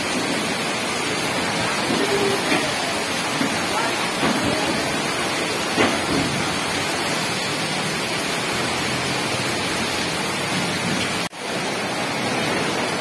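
Heavy rain pouring steadily onto a flooded street: a constant hiss of rain and splashing water. The sound breaks off for a moment near the end.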